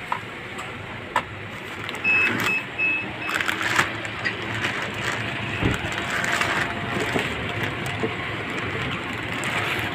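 Plastic bag crinkling and cardboard box rustling as a boxed car AC blower motor is unpacked by hand, with irregular clicks and bursts of rustle. A few short high beeps sound about two seconds in.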